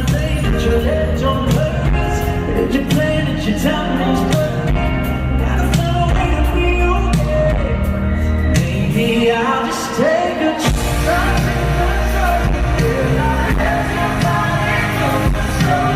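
Live pop ballad played in an arena: a male voice singing over the band. The bass drops out briefly about ten seconds in.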